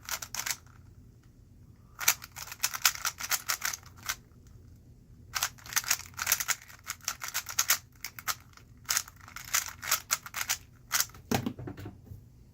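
A 3x3 speed cube being turned fast, its plastic layers clicking in quick bursts broken by pauses of a second or so. The halting rhythm is the sign of a solve with too many pauses for look-ahead.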